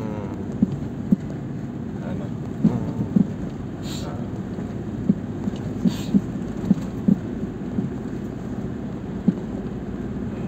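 Irregular dull rattling knocks, about ten of them, over a steady low rumble in a Mahindra TUV300's cabin. This is the 'khad khad' rattle from near the handbrake, which is usually down to the gear shifter mount link.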